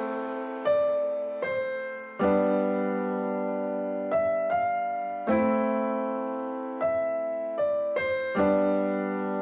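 Background music: slow, gentle piano playing held chords and single notes, each struck and left to ring and fade.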